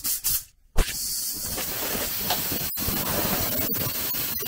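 Compressed-air blow gun blowing sawdust off a wooden step-ladder chair: a few short blasts, then a steady loud hiss of air from about a second in, broken by a couple of brief gaps.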